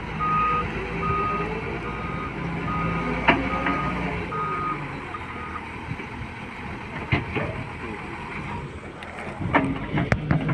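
A heavy vehicle's reversing alarm beeps at a steady pace, about one beep a second, over a running engine. The beeps stop about halfway through, and a few sharp knocks follow near the end.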